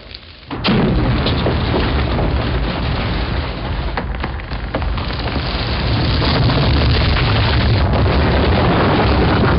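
Film sound-effects layer: a heavy low rumble with dense crackling and clattering debris, starting suddenly about half a second in and holding loud and steady.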